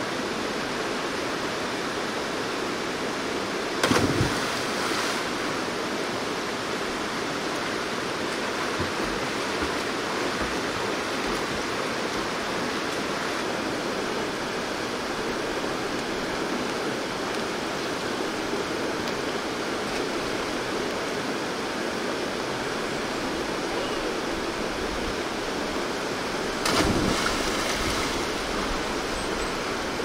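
Mountain-valley stream rapids rushing steadily, with two brief louder bursts, one about four seconds in and one near the end.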